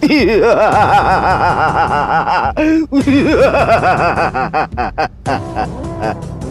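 A man's loud, theatrical villain laugh: a long rapid run of "ha-ha-ha" with a short break about two and a half seconds in, then more laughing that tails off into shorter chuckles.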